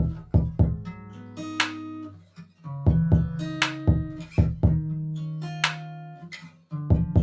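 Background music: plucked guitar with a bass line and a steady beat.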